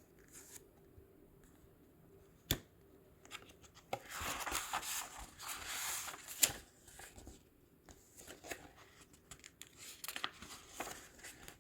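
Paper book pages being handled and turned: a sharp click about 2.5 s in, then soft rustling and crinkling of paper, loudest from about 4 to 7 seconds, with scattered small clicks.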